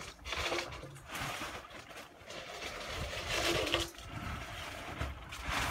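Irregular scraping and knocking echoing out of a corrugated steel culvert pipe as a man crawls through it, dragging a sheet of plywood.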